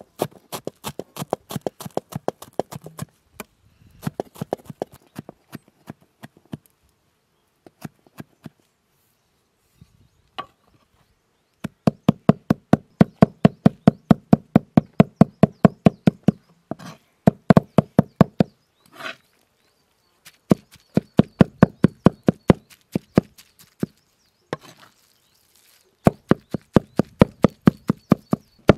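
Cleaver chopping herbs, onion and minced chicken on a wooden cutting board: runs of fast knocks, about six a second, with short pauses between the runs.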